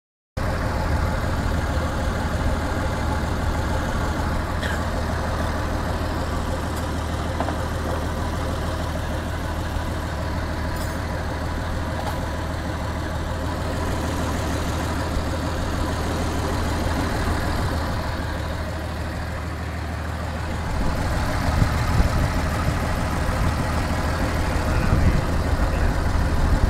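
Newly overhauled Mercedes-Benz 1924 engine idling steadily, getting louder and less even in the last few seconds.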